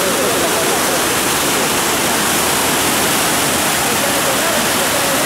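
Swollen creek in flood: a fast, muddy torrent rushing and churning below a bridge, making a loud, steady rush of water.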